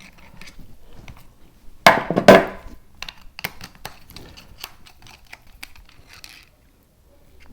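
Hand tools knocking and clicking against the chuck of a cordless drill/driver while the reverse-threaded screw that holds the chuck is worked loose: two loud sharp knocks about two seconds in, then a run of lighter irregular clicks.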